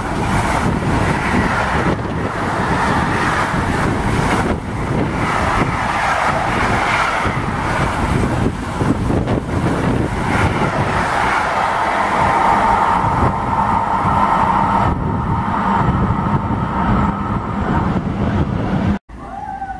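Intermodal freight train of container wagons passing at speed close by: a steady loud rumble of wheels on rails and wagons rushing past. It cuts off abruptly near the end.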